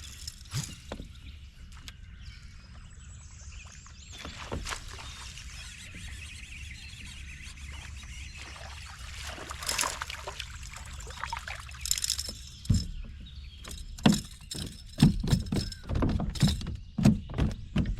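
A steady low rumble of a boat on the water, with splashing and hiss over it. From about two-thirds of the way through come a quick run of knocks and thuds against the boat.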